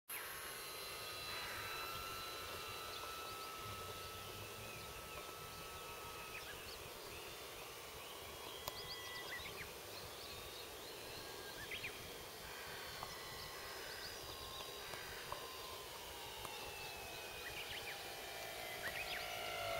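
Faint whine of a distant electric RC model plane's motor and propeller (a Pilatus Porter model), sliding slowly down in pitch over the last few seconds as it is throttled back to land. Birds chirp now and then over steady background noise.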